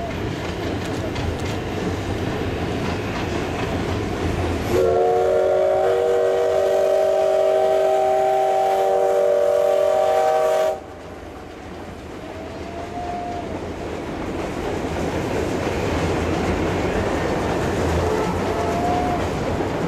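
Steam locomotive's whistle sounding one long chord of several tones, starting about five seconds in and cutting off sharply after about six seconds. Underneath is the steady rumble of the train rolling across a steel bridge.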